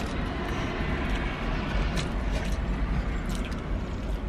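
Steady low rumble inside a parked car cabin, with a few faint clicks and crinkles from chewing and a paper food wrapper.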